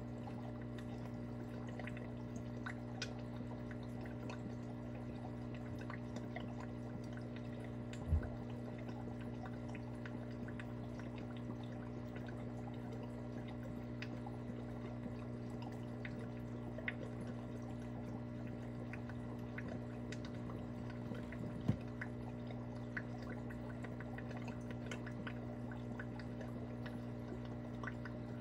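Aquarium filter running with a faint water trickle and scattered small drips and ticks over a steady low hum. A soft thump comes about eight seconds in and another about twenty-two seconds in.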